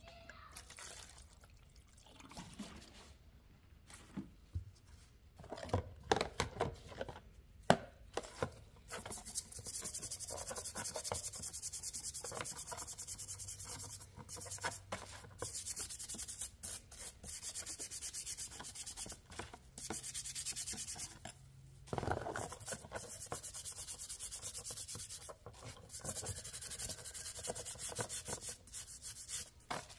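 Rust being scrubbed and sanded off an old Randall Made fixed-blade knife: a steady, rapid, scratchy rubbing with a few short breaks. Before it, for the first several seconds, come scattered clicks and knocks of the knife and tool being handled.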